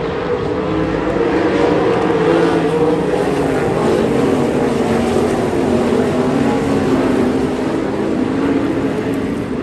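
Several winged dirt sprint cars' V8 engines running together around the track, their pitch rising and falling as the cars pass and go through the turns.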